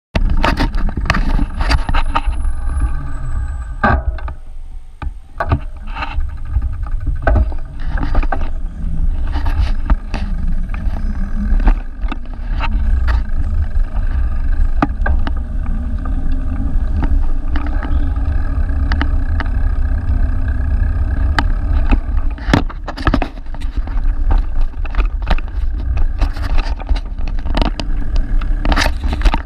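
Wind noise on a moving action camera's microphone, with frequent clicks and knocks from the ride over rough city pavement and passing traffic.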